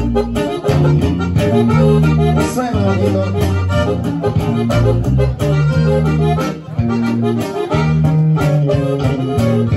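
Live norteño-style band music: an accordion plays the melody over a steady electric bass line, with rhythmic low bass notes underneath.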